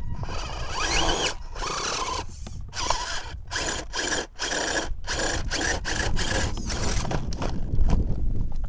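Radio-controlled rock crawler's electric motor and drivetrain whining in short on-off bursts as the throttle is blipped, its tyres scrabbling and scraping against the rock while the truck lies tipped on its side.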